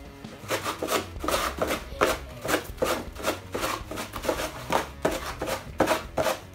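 Facial tissues being yanked one after another out of two cardboard tissue boxes at once: quick papery swishes, several a second, overlapping.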